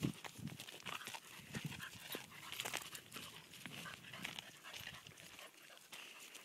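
Footsteps crunching on a gravel track, with short quiet sounds from a Dogue de Bordeaux puppy and a German shorthaired pointer puppy close by.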